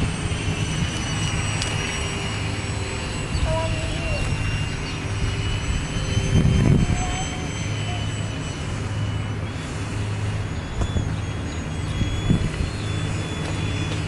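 Seagull Extra 300 EP radio-controlled model plane's electric motor and propeller whining in flight. The high whine drifts a little in pitch over a low rumble.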